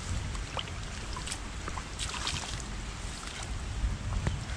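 Rain falling on shallow running water among weeds: a steady wash of water with scattered drips and small splashes.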